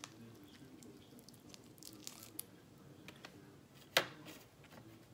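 Close-up eating sounds: small crackles and wet squishes of a boiled shrimp's shell being peeled by hand, with chewing, and one sharp tap about four seconds in.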